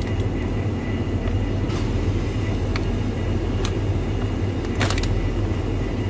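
Steady low hum of a running freezer's refrigeration machinery, with a few faint clicks scattered through it.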